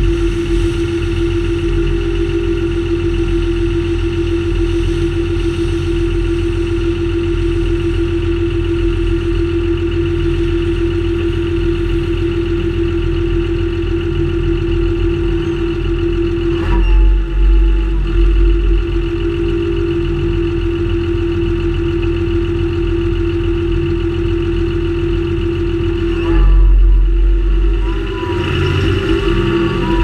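John Deere 6930 Premium tractor's six-cylinder diesel engine running steadily, with a constant whine over a low drone. The low rumble surges louder briefly about 17 seconds in and again for a couple of seconds near the end.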